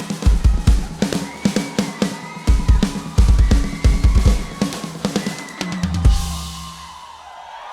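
Live band music without singing: a drum kit plays dense, driving fills of kick, snare and cymbals over bass and sustained keyboard tones. About six seconds in the drums stop on a last hit, a cymbal rings out and fades, and a soft sustained keyboard pad remains.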